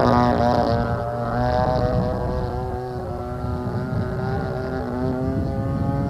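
DLE 20cc single-cylinder two-stroke gas engine of an RC airplane in flight overhead, its buzzing note shifting in pitch with throttle and manoeuvres. It is loudest at the start and eases off after about a second.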